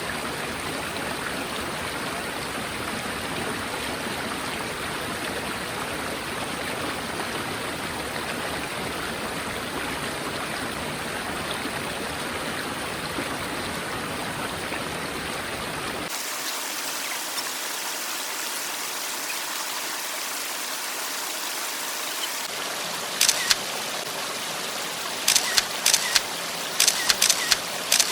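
Mountain valley stream rushing steadily over rocks. About sixteen seconds in the sound cuts abruptly to a thinner hiss, and near the end comes a quick series of sharp clicks.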